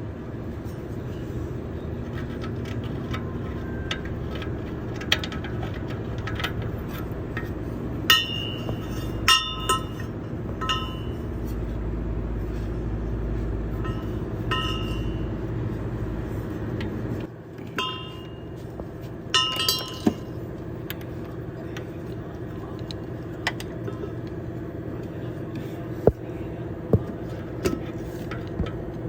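Metal hand tools clinking and ringing against metal, in several clusters of sharp strikes, during work on a car's oxygen sensor. Under them runs a steady mechanical hum, and a deeper rumble in it cuts off about seventeen seconds in.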